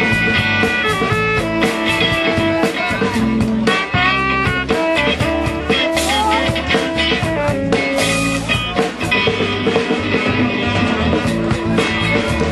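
Live rock band playing, with electric guitar over a steady drum beat.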